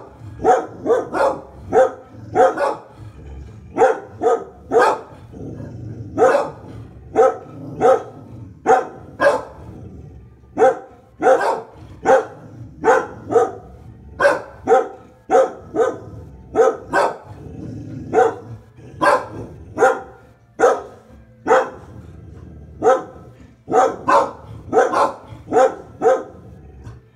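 Dogs barking repeatedly at the window, in quick runs of short barks, about two to three a second, with brief pauses between runs.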